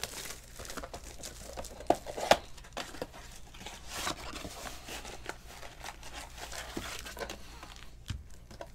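Cardboard and wrapping of a Topps Chrome Sapphire trading-card box rustling and crinkling as it is handled and opened, with small clicks throughout and two sharp knocks about two seconds in.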